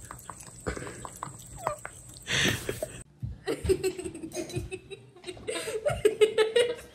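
A person laughing in rapid repeated pulses, starting about halfway through and getting louder near the end.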